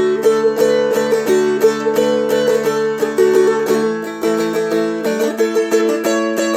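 A Seagull Merlin M4, a four-string fretted dulcimer-style instrument, flatpicked with the melody played on the high D string over ringing open drone strings. Around four seconds in, the lowest drone drops away as the harmony moves from D to A.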